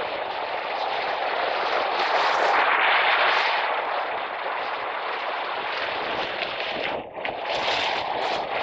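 Heavy surf breaking and washing up the beach, a steady roar of rushing water that swells a couple of seconds in and drops out for a moment near the end.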